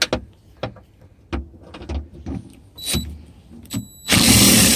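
Light clicks and knocks of a socket and extension being fitted onto a door-handle bolt, then about four seconds in a small electric motor starts suddenly and runs loud and steady.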